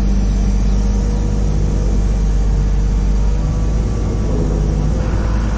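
Diesel engine of a fork-equipped loader running steadily at close range: an even, low drone that holds the same pitch throughout.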